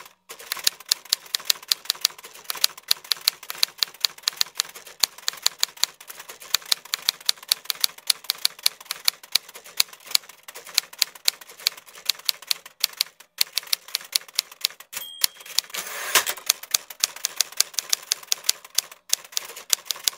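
Typewriter sound effect: rapid keystroke clacks, several a second, with a few short pauses. About three quarters of the way through comes a brief bell ding, then a carriage-return sweep, and the typing goes on.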